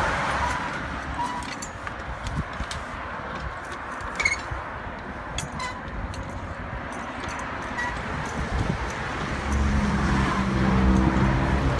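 Vehicle noise with a few light clicks through the middle; about ten seconds in, a nearby engine's low steady hum comes up and is the loudest thing heard.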